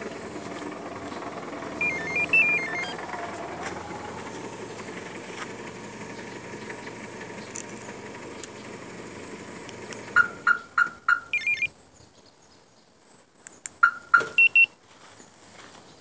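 A car engine idling after a remote start from a two-way car alarm, with a short beeping tune from the alarm about two seconds in. About ten seconds in the engine stops, and a quick series of sharp electronic beeps follows, with a few more near the end.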